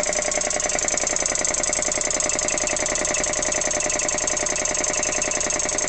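Vintage Dunlop piston air compressor running steadily, driven by its old electric motor, with a rapid even pulsing from its strokes. The motor and unit are shaking as it runs.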